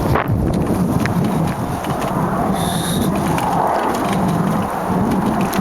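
Giant XTC 840 mountain bike ridden over a gravel track: steady tyre and rattle noise with heavy wind buffeting on the microphone, and a short high squeak about halfway through.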